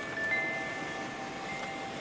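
Steady rain, with several short, clear ringing tones sounding over it.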